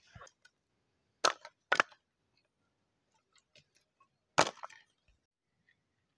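Three sharp wooden knocks from handling cut firewood. Two come close together about a second in and a louder one comes past four seconds, each with a short ring after it.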